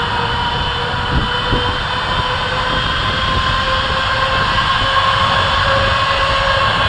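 Boeing 777-300ER's General Electric GE90-115B turbofans running at low power as the airliner rolls on the runway: a steady jet whine whose tones rise slightly in pitch. Two short low thumps come a little over a second in.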